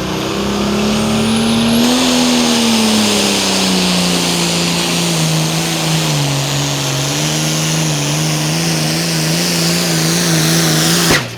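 Competition pulling engine running hard at full throttle under load: a loud, steady drone whose pitch climbs a little in the first two seconds, then eases down and holds. It stops abruptly near the end.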